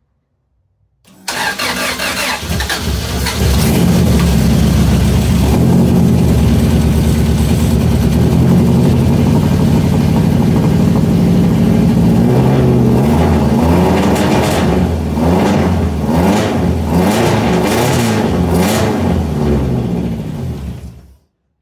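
Toyota 2RZ 2.4-litre four-cylinder engine, swapped into a 1973 Celica and run by a Microsquirt ECU, firing up for the first time about a second in and running. In the last several seconds the revs rise and fall repeatedly, then the engine is shut off suddenly.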